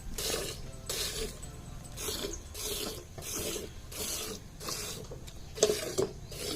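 Buffalo being milked by hand: milk squirting into a pail in steady hissing streams, about two squirts a second. A sharp knock near the end.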